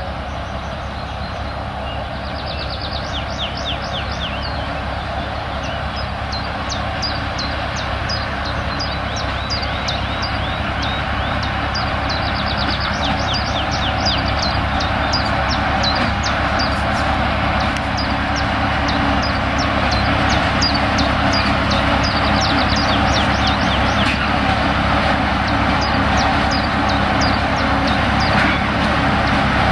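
Small narrow-gauge diesel locomotive hauling a long train of peat wagons, its engine running steadily and growing louder as it approaches. Birds sing over it, a string of quick high chirps that thins out in the last third.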